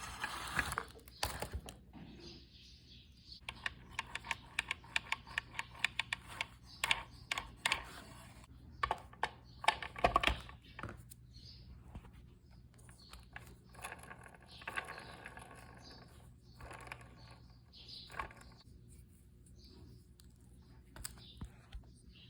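Irregular clicking and light clattering of small hard parts being handled, in clusters of quick clicks, over a faint steady low hum.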